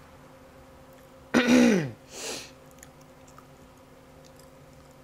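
A woman's short wordless vocal sound, its pitch falling over about half a second, followed by a brief breathy exhale.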